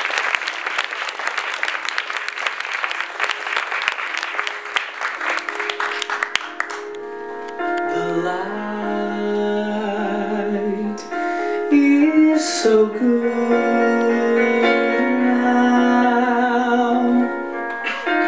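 Audience applause dying away over the first six seconds or so, then an electronic keyboard starting a slow intro of held chords and melody notes.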